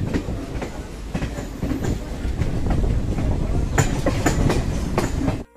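Passenger train's coach wheels running over the track as it gathers speed out of the station: a steady rumble with irregular clickety-clack from the rail joints, the sharpest clacks coming close together a little before the end.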